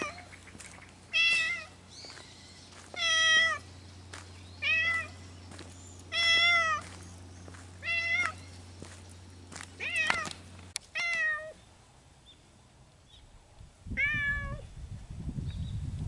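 A stray cat meowing over and over, about eight meows each about half a second long, one every second or two.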